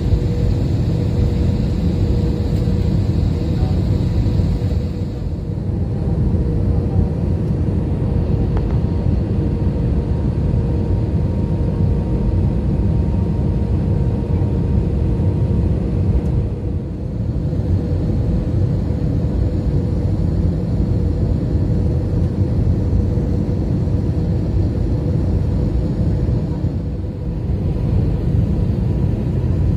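Cabin noise of an Airbus A320neo on final approach, heard from a window seat: the steady drone of the engines and rushing air, with a steady hum running through it. The noise dips briefly three times.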